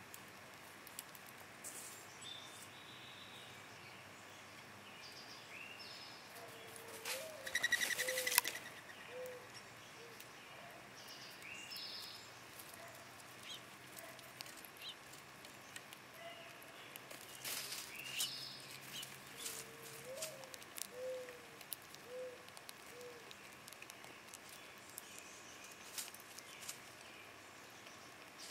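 Wild birds calling outdoors: short high chirps now and then, and two runs of low pitched notes, about eight and about twenty seconds in. The loudest sound is a short, rapid, rasping burst about seven to eight and a half seconds in.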